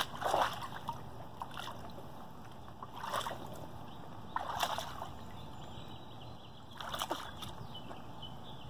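Pool water splashing and sloshing in short bursts, about four of them, as a Standard Poodle puppy wades and dips its muzzle under the surface after a sunken chew toy, with low lapping between the bursts.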